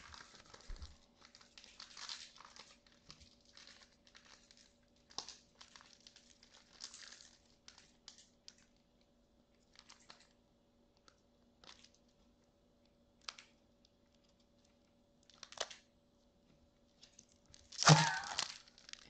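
Faint, scattered rustling and crinkling of Pokémon card booster-pack wrappers and trading cards being handled and torn open. A brief, louder burst of laughter comes near the end.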